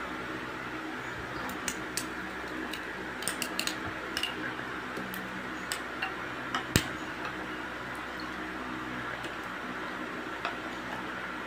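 Metal ladle stirring a plastic bowl of red drink with a block of ice in it, clinking and knocking against the ice and bowl in scattered clicks, the loudest about seven seconds in, over a steady background noise.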